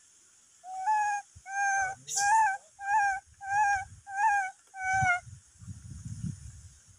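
Young long-tailed macaque giving seven short, clear coo calls in a steady series, about one every two-thirds of a second. A low rumbling noise follows near the end.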